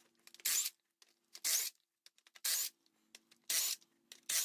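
DeWalt cordless impact wrench run in five short trigger pulls about a second apart, spinning out the outer bolts of a Kubota V2203 diesel's flywheel housing.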